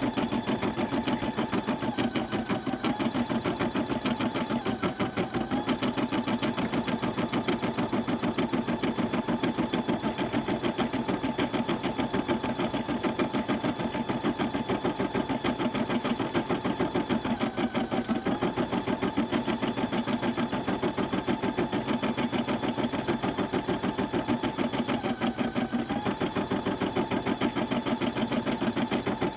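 Brother embroidery machine stitching a design, with a fast even needle rhythm over a steady motor hum whose pitch dips briefly a few times.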